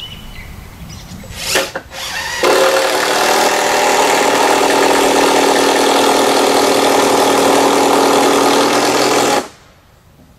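Power drill driving a 5-inch heavy-duty wood screw up through a top plate into a rafter: a brief blip of the motor, then a steady run of about seven seconds that stops suddenly as the screw seats.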